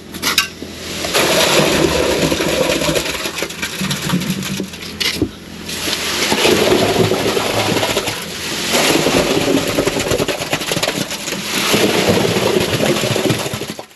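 Wet concrete sliding off a tipped wheelbarrow and splashing down into a footing trench: a continuous rushing, slushy noise in about three surges, stopping abruptly near the end.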